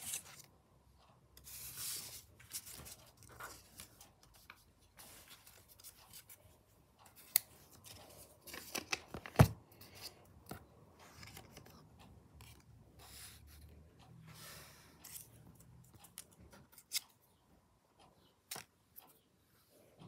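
Paper being cut and handled on a wooden desk: scattered rustles and snips. A sharp tap about nine and a half seconds in is the loudest sound.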